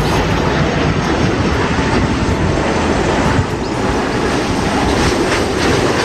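Twin-engine wide-body jet airliner landing: a loud, steady rumble of jet engines and rushing air as it comes in low over the runway.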